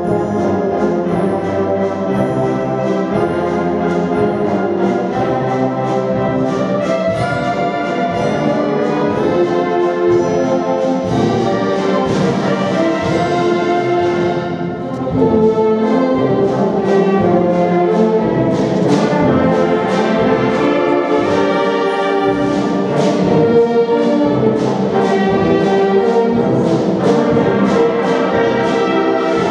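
Concert wind band of brass and woodwinds, with trumpets, tubas and clarinets, playing a tune under a conductor. It eases off briefly about halfway through, then comes back in louder.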